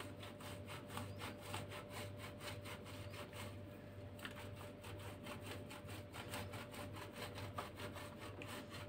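Cheese being grated on a metal box grater: quick, regular rasping strokes as the block is rubbed up and down the blade face.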